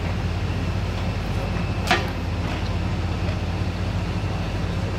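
An engine running steadily with a low hum, and one sharp knock about two seconds in.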